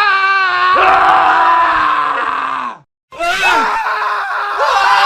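Men screaming in a montage of screams: one long scream falls in pitch and cuts off a little over halfway through, then after a brief silence another scream starts.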